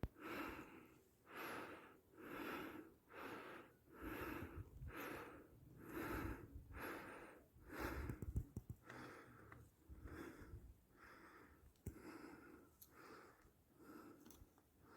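Faint, rapid, rhythmic breathing, about one breath a second, growing weaker toward the end.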